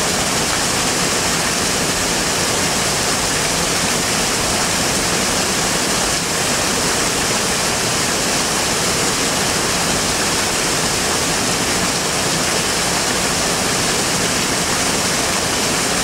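Small waterfall on a rocky stream, water pouring steadily over the rocks into the pool below with an even rushing noise.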